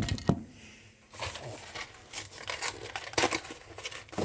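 Rustling and crinkling of packaging being handled in a small room, with a sharp knock at the start and scattered clicks.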